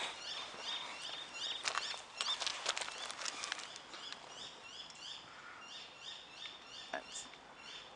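A bird chirping over and over, a short rising note about two to three times a second, fading after about four seconds. A few sharp clicks come about two to three seconds in.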